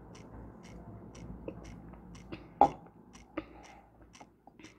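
Quiet gulps and swallows as tonic water is drunk from a can, with one louder short knock about two and a half seconds in and a fainter one soon after, over a faint regular ticking about three times a second.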